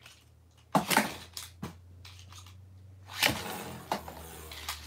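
A Beyblade Burst top launched into a plastic stadium: a sharp rasp of the launch about three-quarters of a second in, a few clicks as it lands, then the top spinning with a faint steady whir. Another loud rasping burst comes just after three seconds in.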